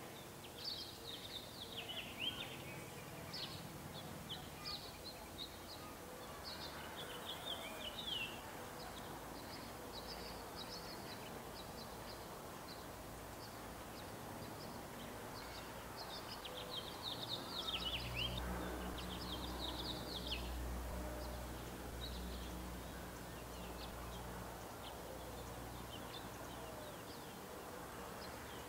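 High, thin bird chirps and peeps in scattered bursts, thickest near the start, about eight seconds in and again a little past the middle, over steady outdoor background noise. A low rumble swells and fades in the second half.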